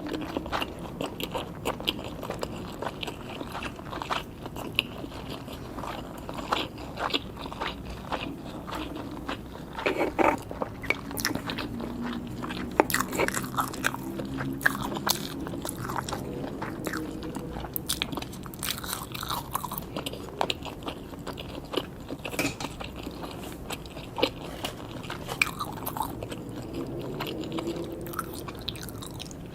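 Close-miked eating of sushi: biting and chewing with many sharp, crisp clicks and crunches.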